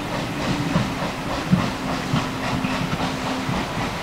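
Steam-hauled train of vintage carriages pulling away: wheels clicking and knocking irregularly over the rail joints, with steam hissing from the locomotive at its head.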